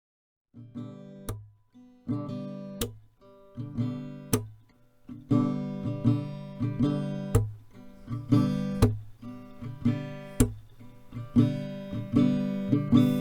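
Acoustic guitar strumming chords in a steady rhythm, starting about half a second in after silence, with a sharp accented stroke about every second and a half.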